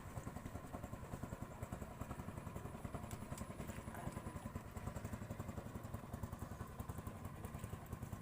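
A small engine running steadily, with a fast, even chugging.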